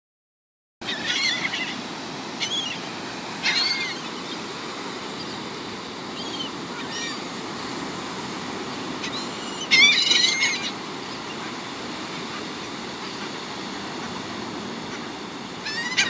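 Gulls calling in short, arched cries, a few at a time, the loudest cluster about ten seconds in, over a steady wash of surf.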